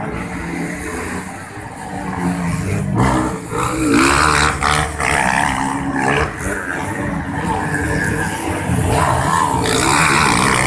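Several motocross bike engines racing up a dirt hill climb. They grow louder as the bikes come close in the last few seconds.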